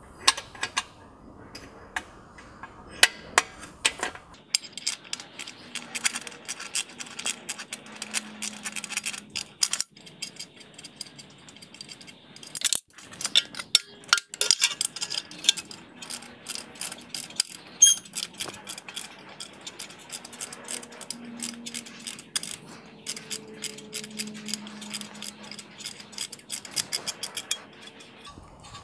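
Ratchet wrench clicking as the 13 mm bolts holding the car's downpipe to its engine-block bracket are loosened, with a few metal clinks of tool on bolt. The clicking is sparse at first, then comes in long runs of rapid clicks with short pauses.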